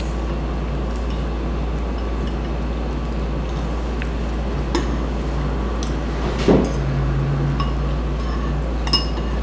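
Metal spoon clinking against a bowl a few times while eating rice, the loudest clink about two-thirds of the way through, over a steady low hum.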